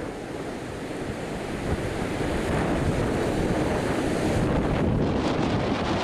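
Ocean surf breaking and washing up the beach, a steady rushing noise, with wind buffeting the microphone.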